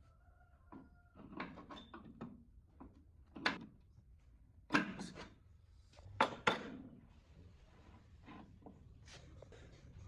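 Metal parts and tools being handled: a string of separate sharp knocks and clanks, the loudest a little after three seconds in and twice more between about five and seven seconds, with a brief squeak near the start.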